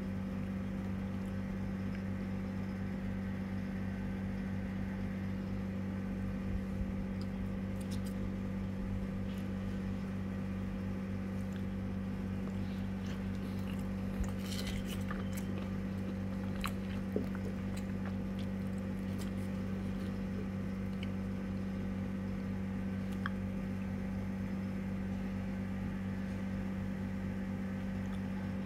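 A steady low mechanical hum runs throughout, with a few faint, scattered clicks and scrapes of a plastic spoon scooping sticky rice out of a bamboo tube.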